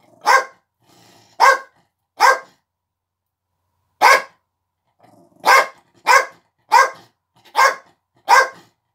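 A dog barking: nine short, sharp barks, a pause after the first three, then coming faster, about one every two-thirds of a second, near the end.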